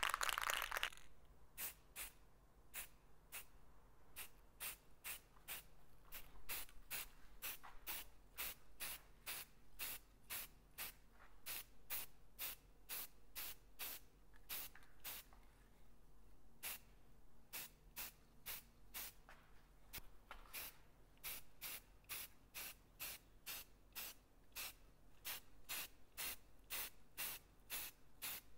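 Aerosol spray can of primer sprayed in many short bursts, about two a second, with a few brief pauses, as a first coat goes onto plastic bumper filler pieces.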